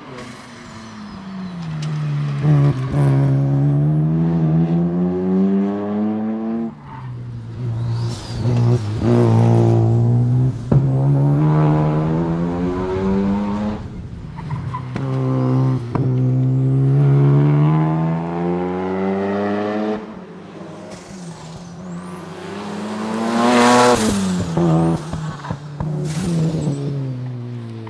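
Mazda RX-7 SP's twin-rotor rotary engine revving hard under full throttle. The pitch climbs and then drops sharply at each upshift, about four times over, with a faint high whine above the engine note.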